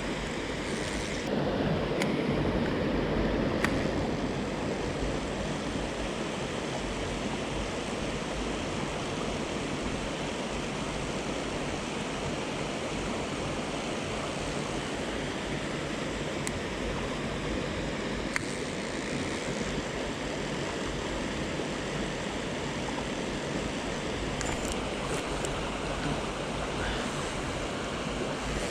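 Mountain stream water rushing steadily, with a few sharp clicks, one a few seconds in and one about halfway.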